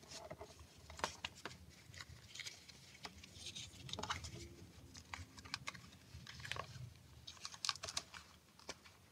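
Faint, scattered clicks and crinkles of a clear plastic planner cover being handled, its corners tucked and pressed over a fabric planner cover.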